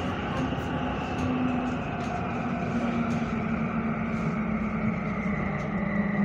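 Copenhagen Metro driverless train running through a tunnel, heard from inside the carriage: a steady rumble of wheels and running gear with a motor whine that sinks gently in pitch.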